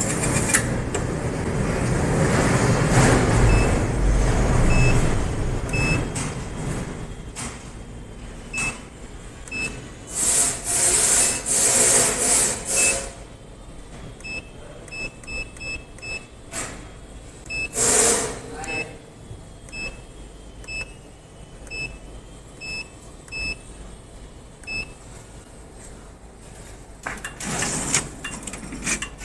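Keypad on a banding machine's control panel beeping as its buttons are pressed: a series of short beeps, some in quick runs. Earlier there is a stretch of low rumbling noise and a few loud bursts of hiss.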